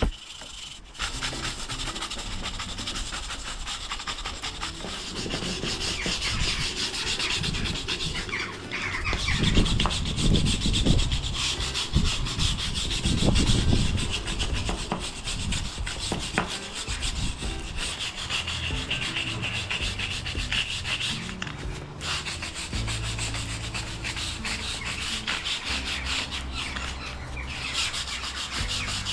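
Stiff wire brush scraping rapidly back and forth over patio paving, scrubbing moss and dirt out of the joints between the slabs.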